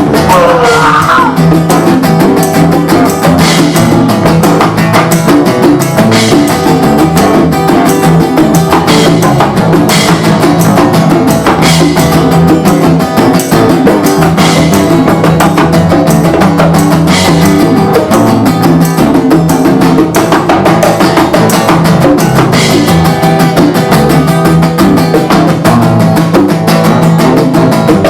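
Instrumental jam: acoustic guitar strummed over hand drums and percussion, with a steady, upbeat rhythm and no singing.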